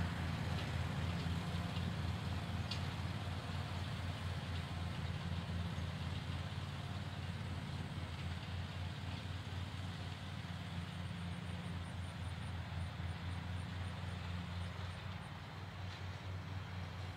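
Riding lawn mower engine running steadily with an even low hum, growing slightly fainter toward the end.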